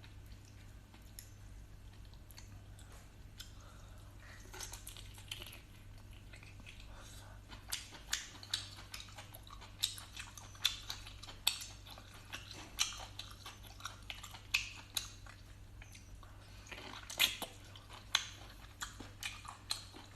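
Close-up chewing of boiled sea snail meat: wet smacking and clicking mouth sounds in irregular bursts, sparse at first and frequent from about a third of the way in, over a steady low hum.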